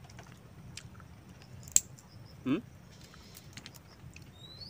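Scattered small clicks of shellfish shell being handled and eaten, with one sharp crack a little under two seconds in. A short rising vocal sound follows about half a second later.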